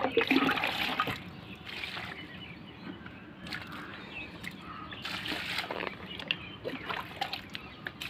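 Water poured onto garden plants and soil, splashing and trickling in about four short pours, the first the loudest.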